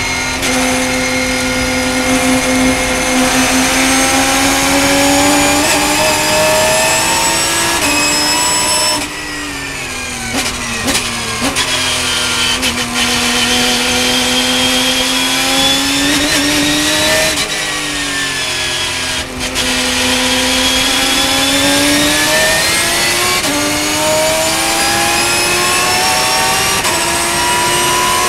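Porsche race car engine heard from inside the cockpit, running hard at high revs. About nine seconds in the driver lifts and brakes, with short throttle blips on the downshifts, then the engine pulls back up through the revs, with gear changes as the car accelerates again.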